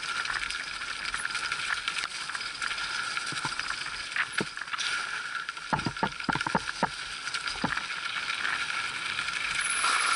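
Mountain bike descending a rough, muddy singletrack, heard from a handlebar-mounted camera: a steady rushing noise of the ride with knocks and rattles of the bike over bumps, a quick cluster of them about six to seven seconds in.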